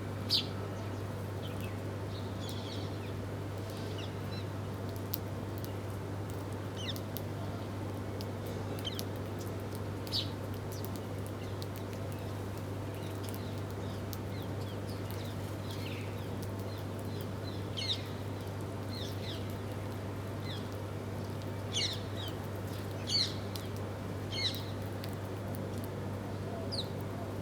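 Small birds chirping in short, scattered notes, sparse at first and busier from about 17 to 25 seconds in, over a steady low hum.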